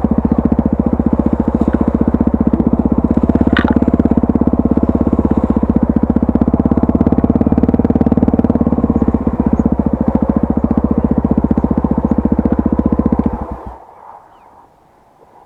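Honda Tornado 250's single-cylinder four-stroke engine running steadily at an even, unchanging pace, then switched off about 13 seconds in, dying away in under a second.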